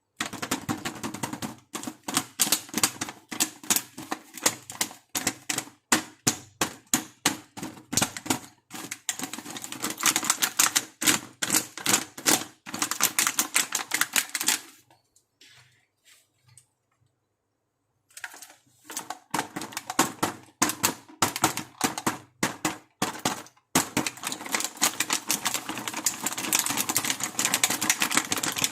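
Dense, rapid clicking and crackling of a toy makeup kit set being unpacked and handled, its plastic pieces and packaging clicking together, with a pause of a few seconds about halfway through.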